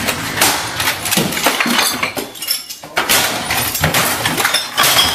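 A computer and the clutter on a desk being smashed with a wooden stick: repeated crashing blows with breaking and clattering of plastic and glass.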